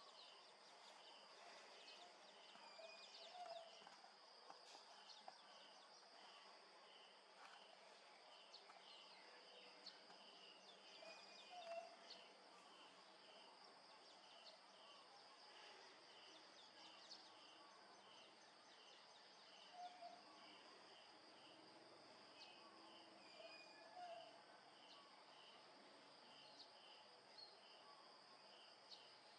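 Faint outdoor ambience: an insect chirping steadily, about two pulses a second, with a dove's low coo every few seconds, sometimes doubled.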